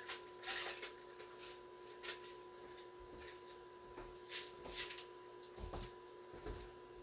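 Scattered light clicks, rattles and rustles of hardware being rummaged through in search of a spare screw. Two faint steady electronic tones hum underneath.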